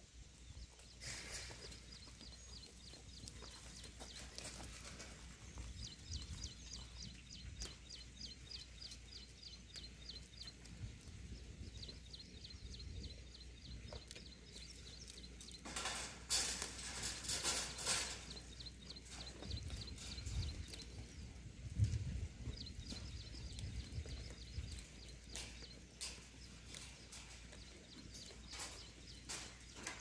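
Faint outdoor ambience: a rapid, high-pitched chirping that comes in runs of a few seconds, with a spell of rustling around the middle and a few soft low thumps after it.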